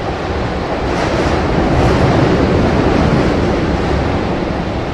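Running noise heard inside a Tokyu 8500 series subway car in the tunnel: a steady rush of wheels on rail and air that swells to a peak about two seconds in and then eases.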